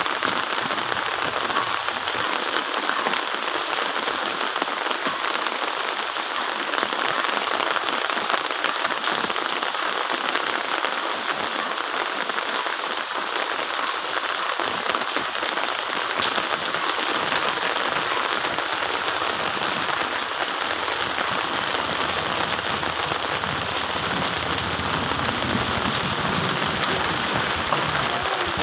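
Steady rain falling, a dense even hiss with many small drop ticks.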